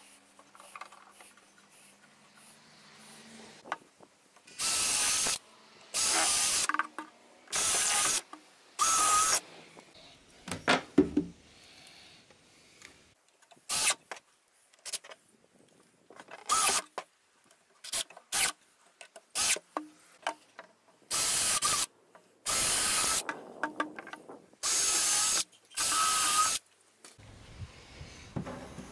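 A workshop tool run in eight short bursts of under a second each, in two sets of four, with scattered knocks and clicks in between.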